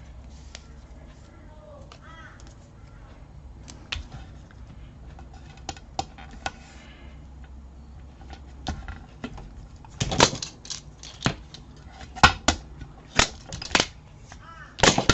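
Double-sided score tape being handled: a scatter of sharp clicks and crackles, coming thick and loud in the last five seconds.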